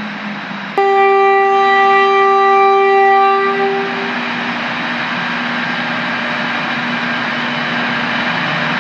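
Tren Maya passenger train's horn sounding one long steady blast of about three seconds, starting abruptly about a second in, over a steady hum of train and station noise.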